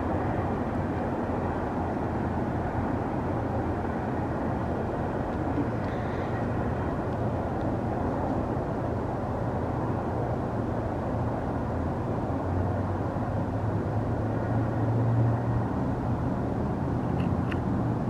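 Steady rumble of a passing train, an even noise with a low hum underneath that swells slightly near the end; no horn sounds.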